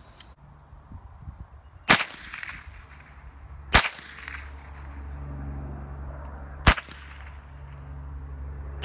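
Three sharp .22 rifle shots about two to three seconds apart, with a fourth right at the end.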